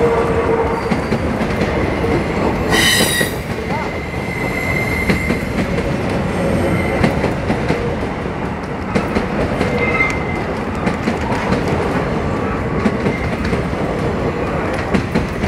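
Freight train of covered grain hopper cars rolling past close by: a steady rumble and clatter of steel wheels on the rails. A brief high wheel squeal about three seconds in, with fainter squeals later.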